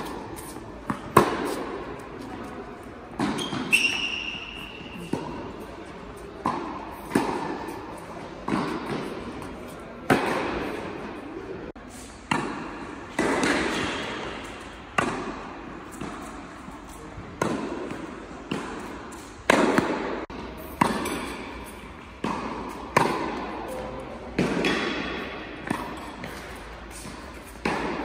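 Tennis balls struck by rackets and bouncing on an indoor hard court in a rally: a sharp hit about every one to two seconds, each ringing on in the large hall.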